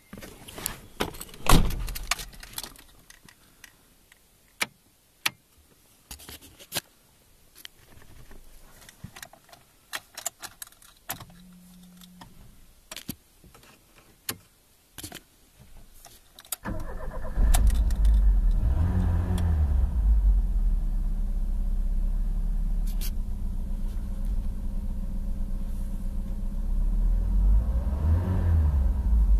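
Ford Scorpio Mk1's engine heard from inside the cabin: scattered clicks and knocks of keys and controls, then, past the middle, the engine is cranked, catches and settles into a steady idle. It is revved briefly twice, once just after it starts and again near the end.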